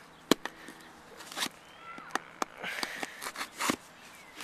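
Cutting and scraping through the tape of a shipping box with a makeshift blade rather than a real knife: scattered clicks and scratchy rasps, with one sharp click a moment in.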